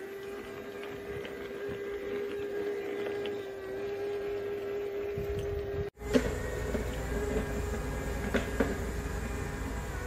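Robot vacuum cleaner running with a steady motor hum. About six seconds in, the sound drops out for an instant and comes back with a deeper rumble and a couple of sharp clicks.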